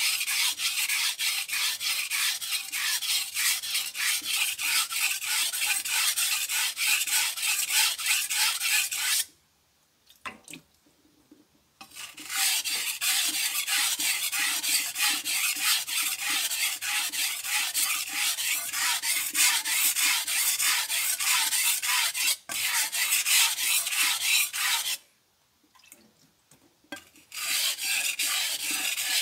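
Chef knife blade stroked back and forth across a whetstone: a steady scraping rasp of rapid strokes, stopping twice for a couple of seconds.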